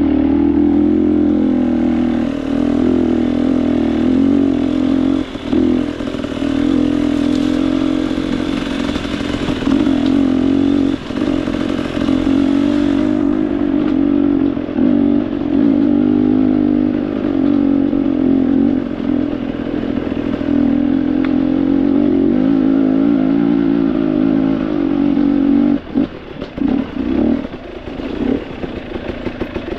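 Off-road motorcycle engine running at steady, high revs under way, with clattering from the bike over rough ground. Near the end the revs drop and pick up several times as the throttle is closed and opened.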